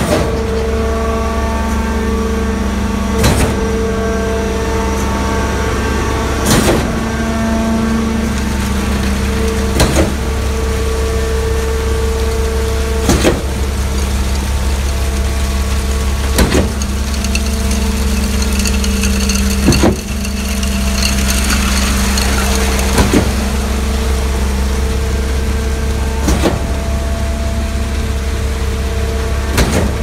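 Trailer-mounted concrete pump running steadily under load, with a sharp knock about every three and a third seconds as the pumping cylinders reverse and the valve swings over. For a few seconds past the middle there is a rushing noise as wet concrete slides down the mixer truck's chute into the pump's hopper.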